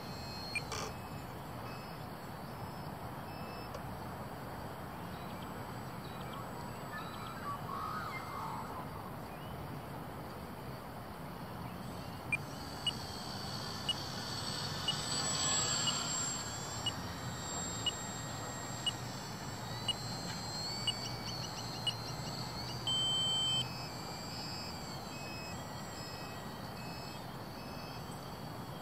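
Electric motor and propeller of a Cessna TTX foam RC plane in flight, a distant whine that swells as the plane passes about halfway through. Over it, a string of short high beeps about once a second, then one longer beep a little past two-thirds of the way through.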